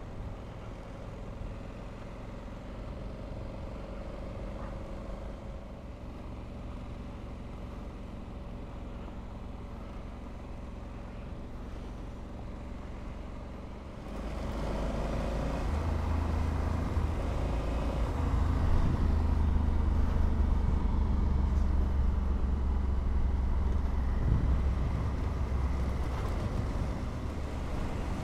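Honda Africa Twin's parallel-twin engine running at a steady cruise, mixed with wind and road noise. About halfway through the sound gets louder and deeper.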